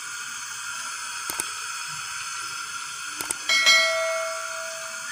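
Steady hiss with a few light clicks while oil is poured from a steel oil can into an aluminium pot; about three and a half seconds in, metal strikes the pot with a clang that rings for about a second and a half.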